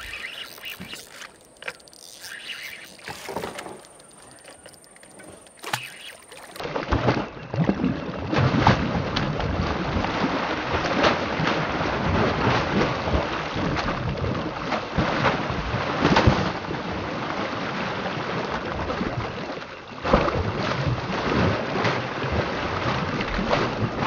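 Water rushing and splashing around a boat on a river, starting suddenly about six seconds in after a quieter stretch, then loud and steady with many sharp splashes.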